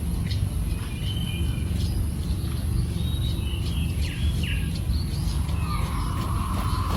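King quail giving a few soft chirps and short whistles, about a second in and again around three to four seconds in, over a steady low background hum. A brief hiss comes near the end.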